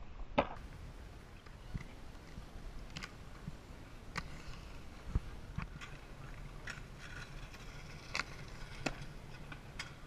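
Inline skate wheels rolling over concrete, a steady low rumble, with scattered sharp clacks and knocks of skates landing and striking the park's ledges. The loudest clack comes just after the start, as an airborne skater lands.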